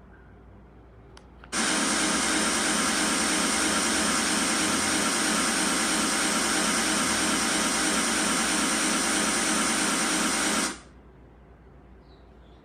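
A loud, perfectly steady hiss of noise, like static, switches on abruptly about a second and a half in and cuts off just as suddenly about nine seconds later.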